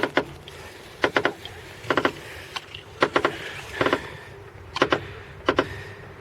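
Front suspension of a VAZ-2111 giving sharp, repeated clicks and creaks, mostly in close pairs about once a second, as the steering wheel is turned a little to the left, with a steady low hum behind them. The creak sits at the left front strut, where the spring or the strut's top support bearing is suspected.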